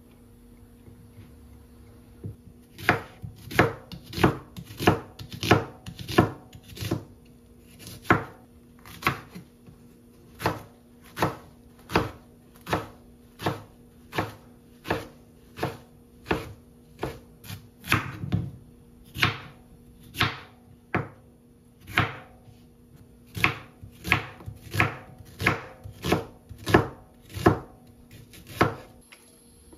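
Chef's knife chopping perilla leaves and onion on a wooden cutting board: sharp knocks of the blade on the board at an uneven pace of about one to two a second, starting about three seconds in, over a faint steady hum.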